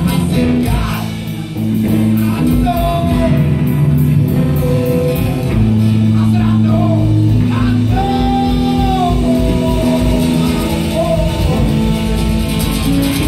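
Live rock band playing: guitars over a drum kit, held notes and a bending melody over a steady beat.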